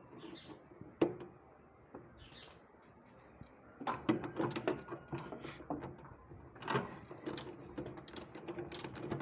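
Irregular clicks and knocks, a single one about a second in and then frequent from about four seconds in, over a faint steady hum.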